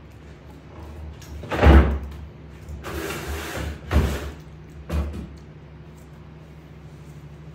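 Three dull thumps, the first and loudest about a second and a half in, the others about two and three seconds later, with a short rustle between the first two.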